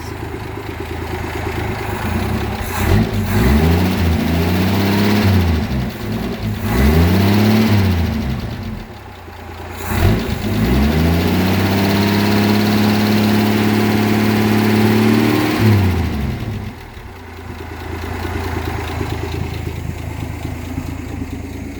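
1958 AMC Rambler Super engine revved up and let back down twice, then held at raised revs for about five seconds before dropping back to idle, running smoothly without the misfire it had before its new distributor cap. The exhaust goes out through a muffler the owner calls awful.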